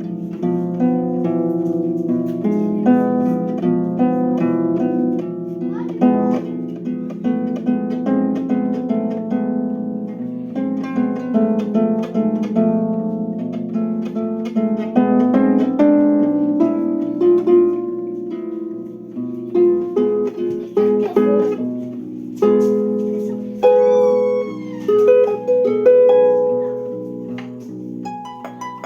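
Improvised music on a plucked string instrument: many overlapping notes ringing on over steady low tones, thinning to separate plucked notes near the end. A short high gliding sound comes in briefly about three quarters of the way through.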